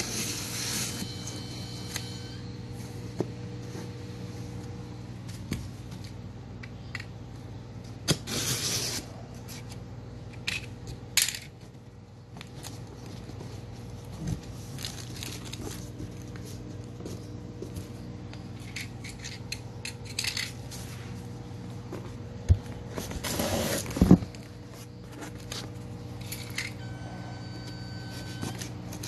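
Snap-off utility knife cutting through the packing tape and cardboard of a shipping carton, with scraping, rustling and ripping as the box and its plastic document pouch are handled. The loudest rips and scrapes come about eight and twenty-three seconds in, over a steady low hum.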